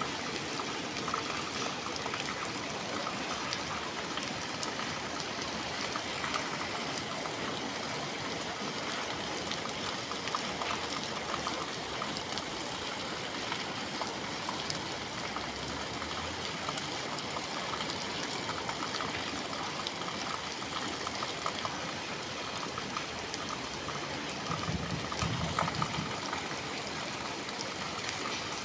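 Steady rain heard from inside a café: an even hiss with many small drop taps. A brief low rumble swells near the end.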